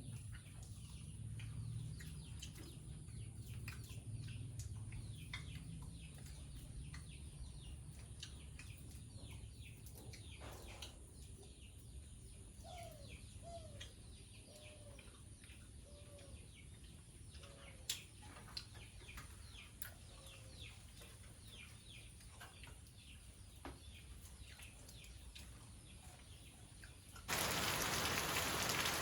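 Birds chirping faintly, with quick falling chirps throughout and a run of about five short falling calls around the middle, over a faint low hum at first. Near the end, steady heavy rain comes in abruptly and is the loudest sound.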